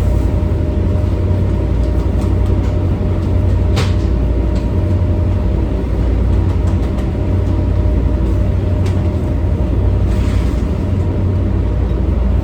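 Steady low drone of a towboat's diesel engines running, with a short sharp click about four seconds in.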